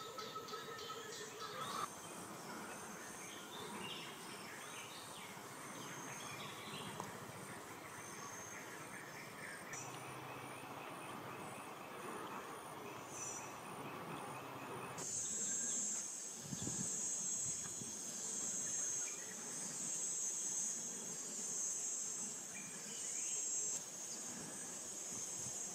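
Rainforest ambience with a chorus of insects. A steady, high-pitched insect drone comes in abruptly about halfway through and becomes the loudest sound.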